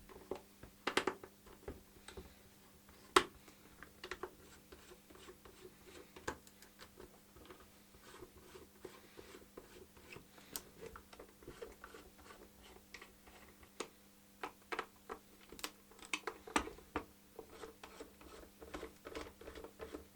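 Screwdriver and hands working on a plastic Spektrum DX6i transmitter case as its case screws are taken out: scattered light clicks, taps and small scrapes at irregular intervals, over a faint steady hum.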